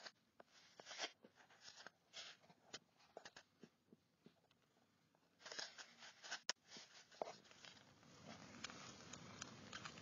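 Persian kittens suckling at their mother: faint, irregular little wet clicks and smacks. A soft steady noise comes up in the last couple of seconds.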